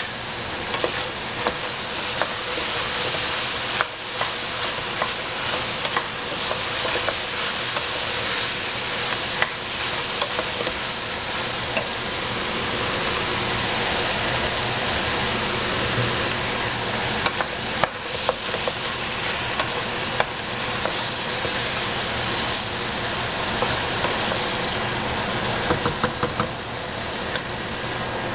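Food sizzling and frying in a pan while it is stirred, with irregular clicks and knocks of the utensil against the pan over a steady hiss.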